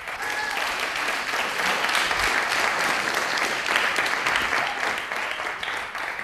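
A large audience of students applauding, many hands clapping at once. The applause swells in the first second, holds, then thins out near the end.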